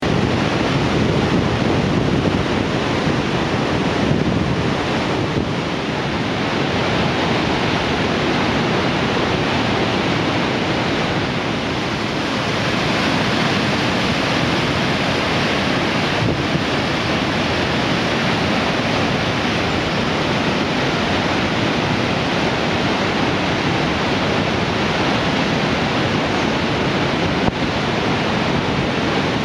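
Fast mountain river rushing through boulder-strewn white-water rapids: a loud, steady rush of water.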